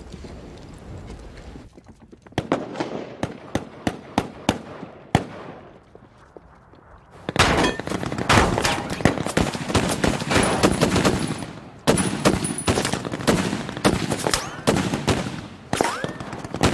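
Rifle gunfire in a battle: scattered single shots at first, then from about seven seconds in, dense, rapid gunfire, with a brief lull about twelve seconds in.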